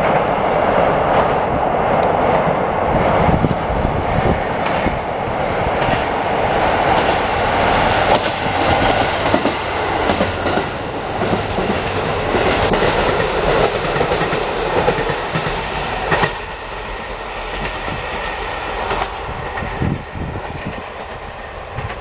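KiHa 183 series diesel express train passing close by: engines running and wheels clacking over the rail joints. The sound drops off about two-thirds of the way through and fades as the train draws away.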